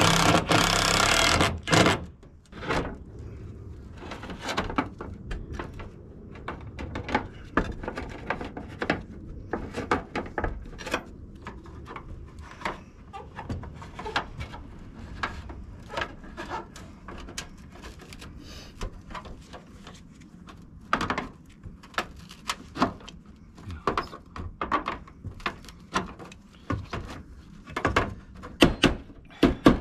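Zinc sheet-metal flashing being handled and fitted on a roof: irregular clanks, taps and knocks of the metal against the battens and tiles. A loud noisy scrape or rush fills the first two seconds, and a quick run of taps comes near the end.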